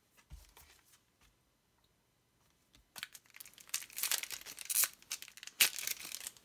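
Lego Ninjago trading card booster pack being torn open, its wrapper crinkling and ripping in bursts from about three seconds in. Before that come a few faint ticks of cards being handled.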